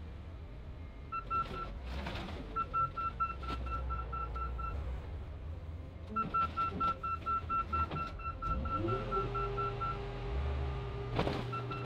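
Heavy equipment working at a car crusher: a fork-equipped loader's engine rumbles while its warning alarm beeps rapidly in several spells, with metal clunks as a junked car is set into the crusher. About two thirds of the way through, a machine's drone rises in pitch and then holds steady.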